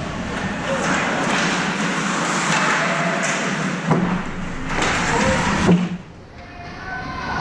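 Ice hockey game sounds in an arena: a steady wash of skate and crowd noise, with two sharp knocks about four and six seconds in, after which it briefly quietens.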